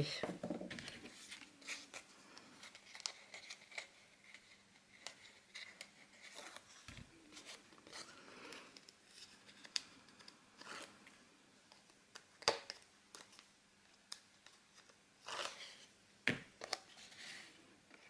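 Faint rustling and crinkling of card and double-sided tape being handled and pressed down, with scattered sharp little ticks and a couple of louder clicks.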